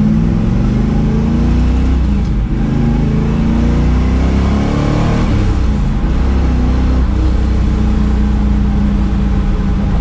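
1973 Camaro Z28's V8 with a lumpy cam, heard from inside the cabin while driving: the engine note rises in pitch as the car accelerates over the first few seconds, then settles to a steady cruise.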